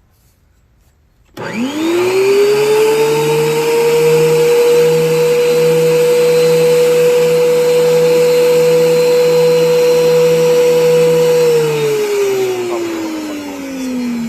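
WEN 13-inch three-blade benchtop thickness planer switched on. Its motor and cutterhead spin up quickly to a loud, steady whine. About 11 seconds in it is switched off and winds down, the pitch falling.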